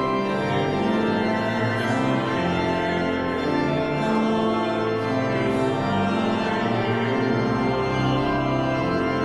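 Background organ music: sustained chords that change every second or so.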